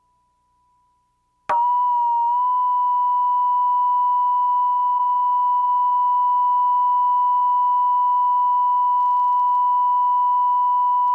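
A steady video line-up test tone, the reference tone recorded with colour bars on video tape. It comes in suddenly about a second and a half in and holds as one unchanging beep.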